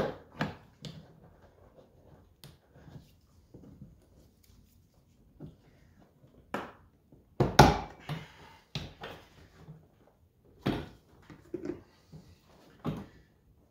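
Plastic interior trim panel of a C8 Corvette being pried up by hand, with a string of sharp knocks and clicks as its retaining clips let go and the panel shifts, the loudest about seven and a half seconds in.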